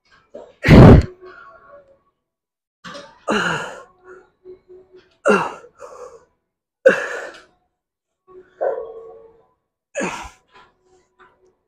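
A man's sharp, forceful exhalations while lifting, about six in a row, one every one and a half to two seconds, the first the loudest.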